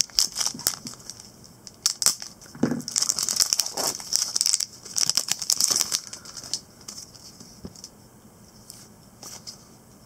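Foil wrapper of a trading-card pack crinkling and tearing as it is torn open, a dense run of crackles for about the first six seconds, then only faint rustling as the cards are handled.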